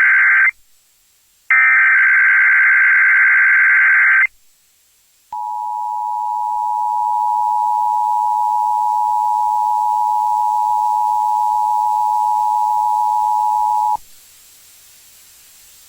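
Emergency Alert System test signal on radio. The end of one digital SAME header burst is followed by a second full burst of about three seconds. After a short gap comes the steady two-tone attention signal, held for about nine seconds, which then cuts off suddenly.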